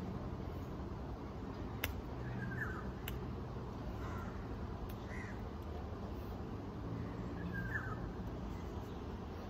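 A few short, separate bird calls over a steady low background rumble, with two sharp clicks about two and three seconds in.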